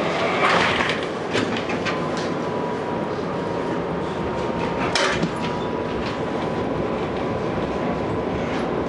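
Tram running along its track, heard from inside the car: a steady rumble of wheels on rails with a few sharp knocks, the loudest about five seconds in, and a thin steady whine starting about a second in.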